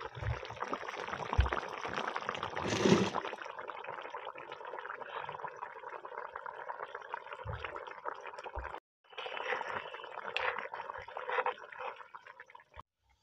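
Fish curry bubbling and sizzling in a pot over a wood fire, a dense steady crackle of simmering with a brief break about nine seconds in.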